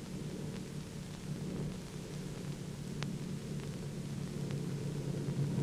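Piston aircraft engines droning steadily overhead, slowly growing louder, on an old film soundtrack with a faint hiss.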